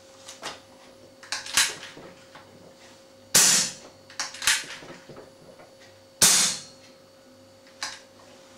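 Two shots from a .177 Webley FX2000 pre-charged air rifle fitted with an aluminium silencer, about three seconds apart, each a sharp crack with a short tail. Lighter clicks come before and after each shot.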